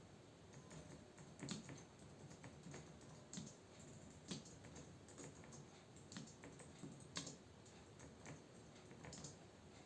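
Soft typing on a computer keyboard: an uneven run of faint keystroke clicks, with a few sharper, louder strokes scattered through.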